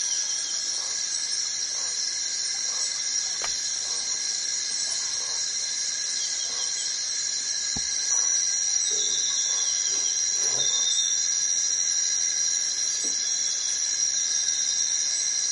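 Forest insects droning steadily in a chorus of several high pitches, with a couple of soft knocks about a third of the way in and again near the middle.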